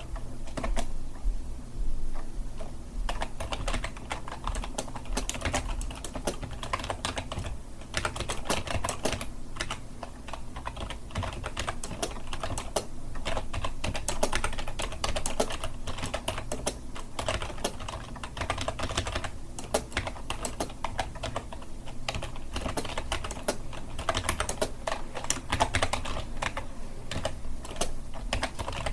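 Continuous typing on a computer keyboard: a dense, uneven stream of key clicks with no pauses.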